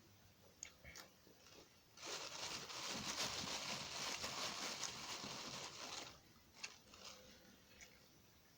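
Close-up eating sounds: a few small mouth clicks, then about four seconds of dense crunching and chewing of tofu, with quieter clicks after it.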